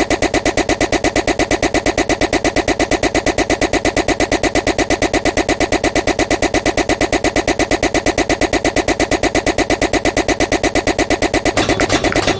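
Loud, harsh electronic noise pulsing rapidly and evenly, several pulses a second, changing near the end to a rougher, more jumbled texture.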